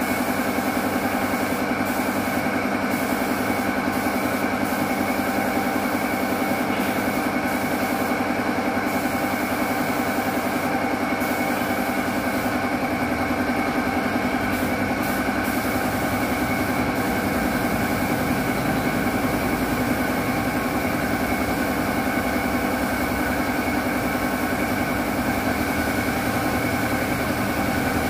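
Air compressor motor running steadily under the high hiss of a gravity-feed paint spray gun. The hiss drops out for brief moments several times, between passes of spray.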